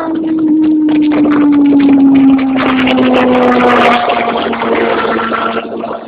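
Sport motorcycle at high speed: engine note falling steadily for about four seconds as the bike slows, then holding level, under heavy wind rush on the microphone.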